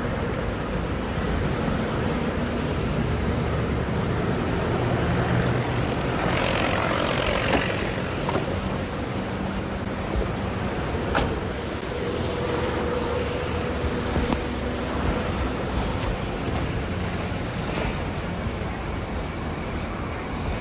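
A car engine runs steadily amid street traffic, with a swell of hiss around six to eight seconds in and a sharp click about eleven seconds in.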